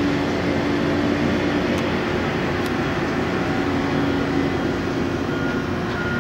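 Steady drone of heavy construction machinery running, with a low held hum. Near the end a vehicle's reversing beeper starts, with short high beeps repeating a little faster than once a second.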